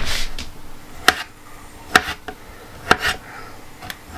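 Knife slicing small cooked beetroot on a cutting board: three sharp knocks about a second apart, with a few fainter taps between.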